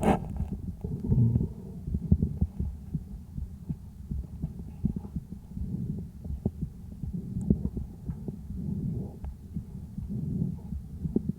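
Sick calf's chest heard through a stethoscope microphone: muffled breath sounds that swell and fade slowly, with many short irregular clicks over them, the kind of crackles the recording is made to follow.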